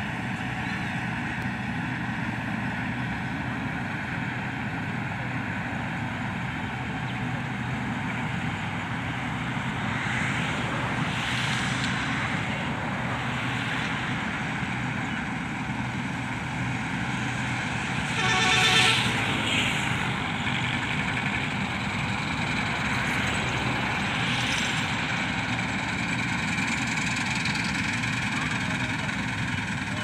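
Combine harvester running steadily as it cuts and threshes standing wheat, a continuous engine and machinery drone. A short, louder pitched sound rises above it about two-thirds of the way through.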